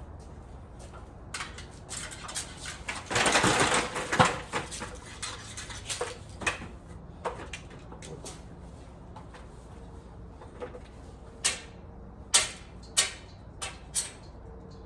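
Rustling, then a series of sharp clicks as old string lights are handled and pulled down, with brittle plastic wire ties snapping off. A cluster of five sharp clicks comes near the end.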